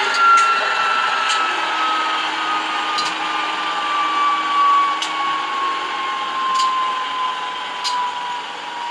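Alco 539T six-cylinder diesel switcher engine sound, played by an ESU LokSound v4.0 XL decoder through a small loudspeaker: steady engine running with a high whine that falls slowly in pitch throughout, and sharp clicks every second or two.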